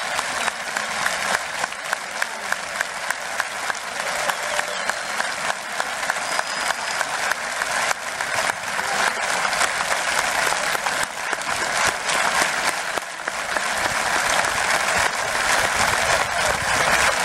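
Large stadium crowd of football supporters applauding, clapping in unison at about two claps a second for the first several seconds, then breaking into looser, continuous applause.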